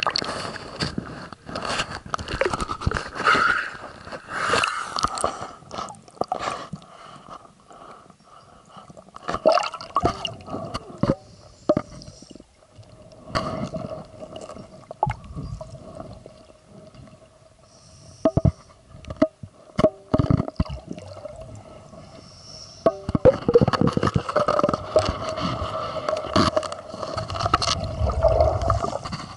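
Water sloshing and gurgling around a scuba diver's camera housing at the surface and under it, with scattered knocks and scrapes throughout.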